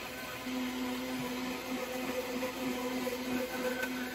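Vitamix blender motor running steadily at speed, blending egg whites, lemon juice and oil into an aioli emulsion.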